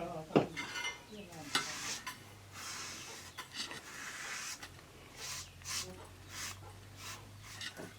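Salt and spice being ground with a stone pestle: irregular scraping and rubbing strokes of stone on stone.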